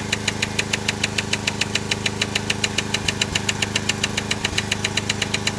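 Starter solenoid on the Oliver 770 tractor clattering in a rapid, even run of clicks without the engine cranking. The owner puts this down to the key switch he uses to bridge the wiring passing current on its own. Under it a small generator engine runs with a steady hum.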